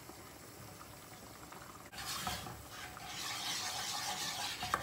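Wooden spoon stirring a flour-and-oil roux in a non-stick pot over low heat, rubbing against the pot with a light sizzle. The stirring starts about two seconds in and then goes on steadily.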